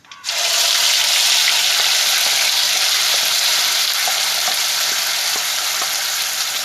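Wet ground masala paste of coconut, onion, ginger, garlic and dried red chillies dropped into hot oil with popping mustard seeds in a kadai: a sudden loud sizzle that breaks out just after the start and goes on steadily, easing slightly, with a few small pops.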